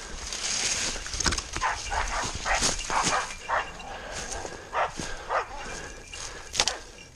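Hunting dog barking repeatedly, holding a wounded wild boar at bay, over footsteps crunching through dry leaves and brush scraping past.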